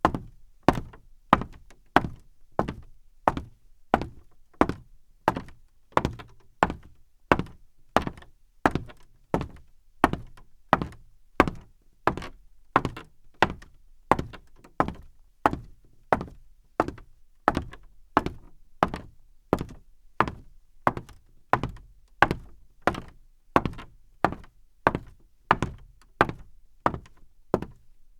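Women's high heels walking at a steady pace on a creaky floor, about three heel strikes every two seconds.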